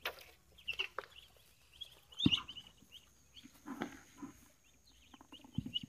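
Muscovy ducks peeping in many short, high calls, with a few knocks mixed in, the loudest about two seconds in.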